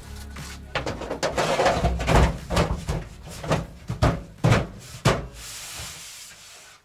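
A series of about eight irregular knocks and thuds over a low rumble, fading away near the end.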